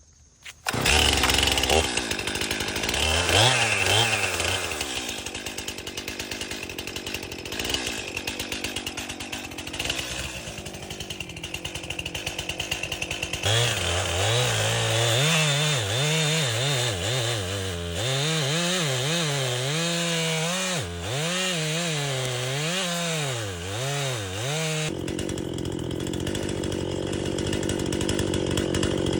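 Stihl MS-261C two-stroke chainsaw running loud and cutting into a locust trunk. Its engine note rises and falls repeatedly as the revs change under load.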